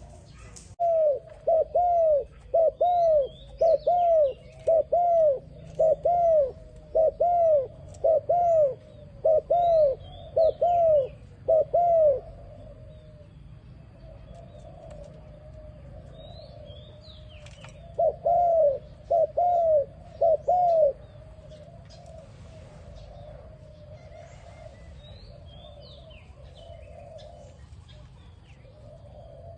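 Dove cooing in a quick run of short, arched notes, about two a second, that stops about twelve seconds in and starts again for a few seconds later on. Faint chirps of small birds sound behind it.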